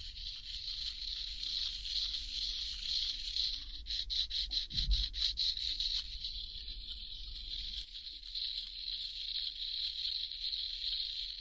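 In-shell macadamia nuts being handled: a steady rustling hiss with clusters of small hard clicks, about four seconds in and again near the end, as the thick shells knock together, and one dull thump just before five seconds.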